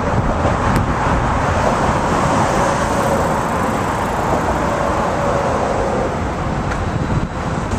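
Steady rush of road traffic passing close by, with a faint steady whine in the middle.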